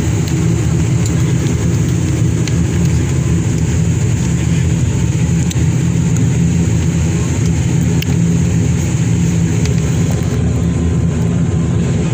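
Turboprop airliner's engines running with a steady, loud drone, heard from inside the passenger cabin as the plane rolls along the runway.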